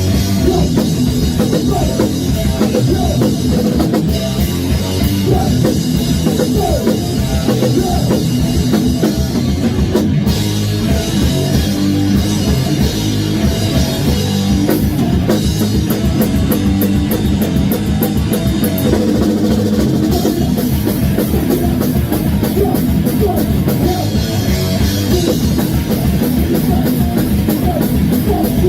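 Heavy metal band playing an instrumental stretch in rehearsal: loud electric guitars over a fast drum kit, steady throughout.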